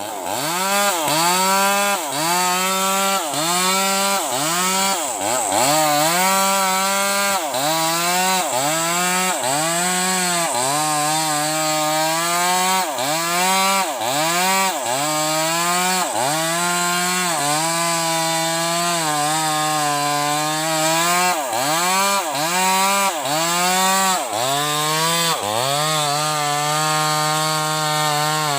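Bosco 5880 two-stroke chainsaw cutting sengon wood, its engine pitch dipping sharply and recovering about once a second as it loads in the cut.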